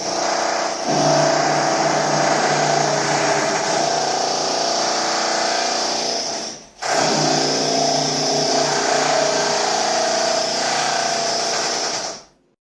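Electric drill running steadily at speed, with a constant motor whine. It stops for a moment a little past halfway, starts again and cuts off near the end.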